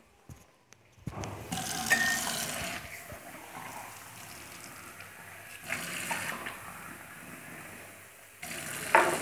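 Water running from a kitchen tap into a stainless-steel sink, starting about a second and a half in and swelling louder a few times.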